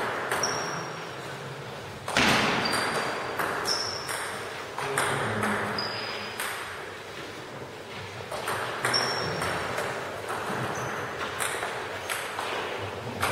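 Table tennis ball clicking off bats and the table during play, a dozen or so sharp hits at uneven spacing, several with a short high ping, echoing in a large hall.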